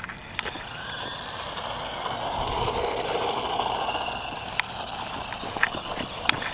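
Toy RC truck's small electric motor whining and its tyres rolling on concrete, growing louder over the first few seconds and then easing off, with a few light clicks near the end.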